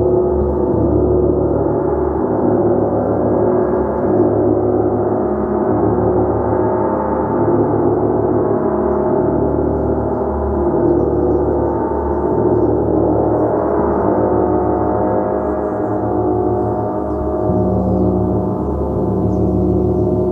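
Gong played continuously in a steady, dense wash of overlapping tones, swelling and easing slowly, with no single strike standing out.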